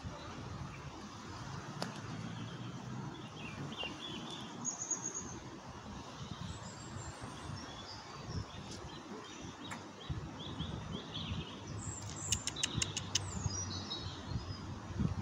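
Small birds chirping, with scattered short high calls, over a steady low rumble. A quick run of about eight sharp clicks comes near the end.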